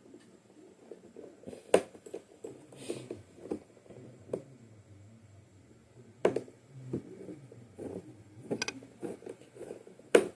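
Scattered sharp clicks and light knocks of a screwdriver and small screws being handled and driven while the iMac's LCD is fastened back in, with a quick run of ticks about two-thirds of the way through.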